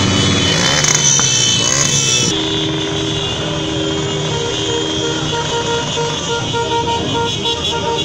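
Motorcycles and cars passing slowly in a procession, with several vehicle horns honking and held in long overlapping tones over the engine noise.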